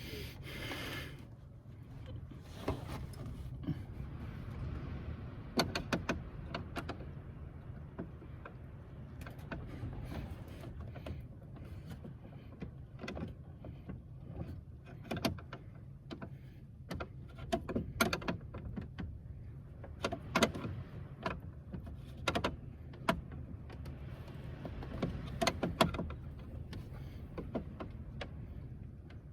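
Scattered clicks, taps and metallic clinks from hand work on vehicle parts, as during a choke cable installation, over a low steady hum.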